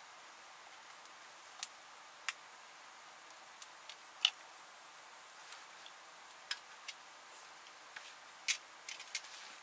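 About a dozen sharp clicks and light taps at irregular intervals over a faint steady hiss, the loudest about four seconds in and again near the end.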